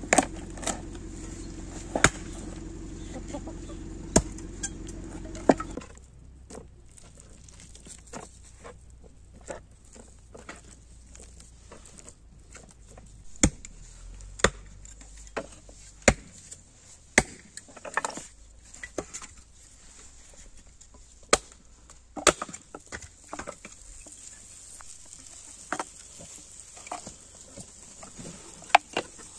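Heavy cleaver chopping raw chicken on a wooden board: sharp single chops at irregular intervals, sometimes a second apart, sometimes several seconds.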